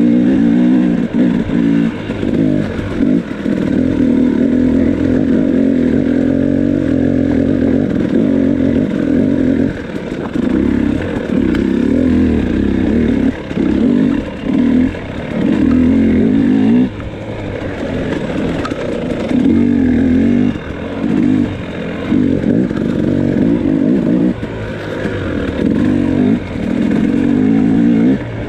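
2018 KTM 300 XC's 300 cc two-stroke single-cylinder engine, breathing through an FMF Turbine Core 2.1 silencer, revving up and falling back again and again as the throttle is opened and shut on a trail.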